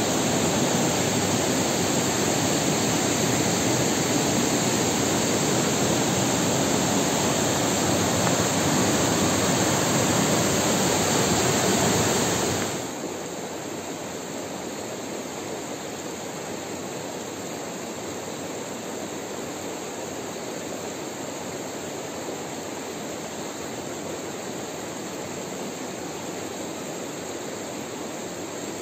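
Steady rush of fast-flowing water. A little under halfway through it drops suddenly to the quieter, steady flow of a shallow stream running over rocks.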